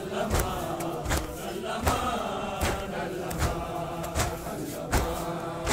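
Men chanting a Shia noha (lament) together, over matam: many hands striking chests in unison in a steady beat about once every three-quarters of a second.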